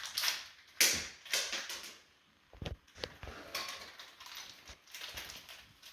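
The potlight's connection box and its small parts being handled: a series of sharp clicks and knocks, the loudest about a second in, then rustling and light clattering.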